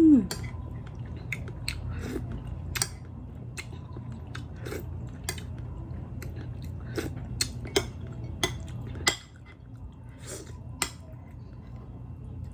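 Close-miked eating: a person chewing and biting food, with scattered sharp clicks of utensils against dishes. A steady low hum underneath cuts out about nine seconds in.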